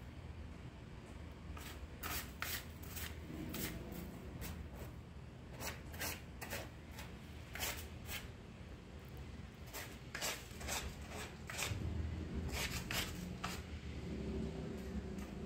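A cat's paws scraping and raking grey granular cat litter in a plastic litter box, in irregular quick scratches that come in short runs of several at a time. The cat is digging to cover its waste.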